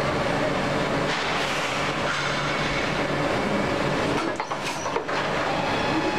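Injection moulding machine running a plastic cap mould: a steady mechanical drive noise with a steady hum, as the mould opens and closes again through one moulding cycle.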